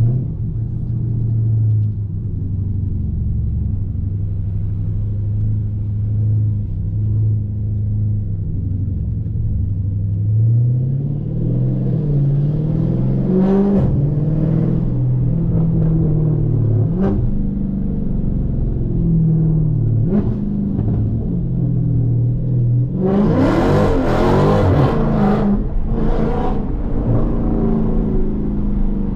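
2020 Dodge Challenger Scat Pack's 392 HEMI V8 running at low, steady revs, then accelerating with its pitch rising and dropping back at each gear change. Near the end comes a louder, harsher few seconds of hard throttle.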